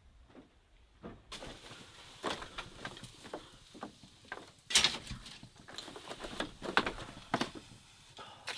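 Irregular knocks, taps and rustles of wood and bamboo being handled at a fire hearth on a bamboo floor, starting about a second in, with a few louder knocks among softer ones.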